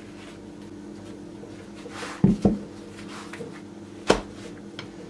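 Hands handling and setting down a folded, cheese-filled yufka pastry on a silicone baking mat: two soft thumps a little after two seconds in and a sharp tap about four seconds in, over a steady low hum.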